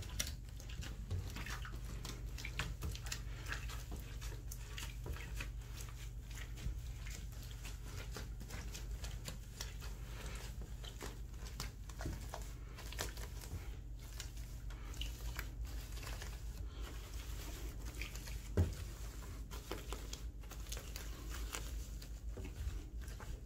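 A hand squeezing and picking through wet Samoyed fur in a bathtub: soft, irregular squishing and patting over a steady low hum, with one louder knock about three-quarters of the way through.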